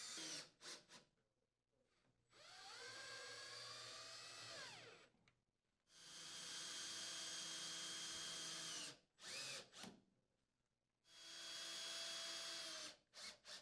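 Cordless power drill with a 5/16-inch socket driving sheet-metal mounting screws, in three runs of a few seconds each. The motor whine rises as it spins up and drops as each run stops, with a few short clicks between runs.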